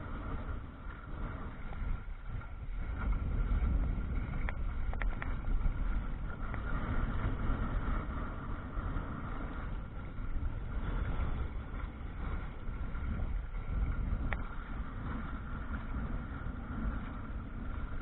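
Wind buffeting the microphone of a camera on a sailing canoe, a steady low rumble, with water washing along the hull and a few faint clicks.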